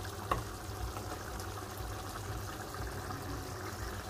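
Bolognese sauce simmering in a frying pan, a steady fine bubbling over a low steady hum, with one short clink just after the start. The sauce is almost done, no longer watery.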